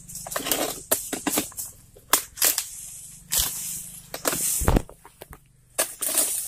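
Blade of a long oil palm harvesting pole hacking into the fibrous frond and fruit-bunch stalks of an oil palm: repeated sharp chops and crunching, crackling cuts with the rustle of fronds, and one heavy thump a little past halfway.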